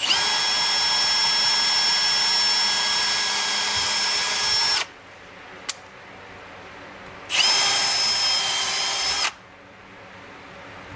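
Milwaukee cordless drill drilling at a cabinet side through a steel support bracket, in two runs of a steady high whine: the first nearly five seconds long, the second about two seconds after a short pause, spinning up quickly at its start. A single click comes between the runs.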